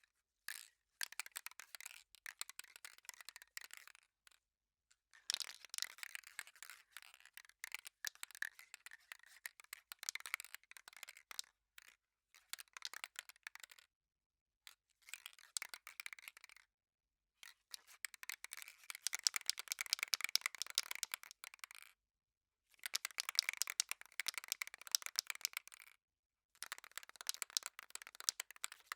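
Aerosol spray paint can being shaken, its mixing ball rattling fast inside. It comes in repeated shaking bouts of a few seconds each, with short pauses between them.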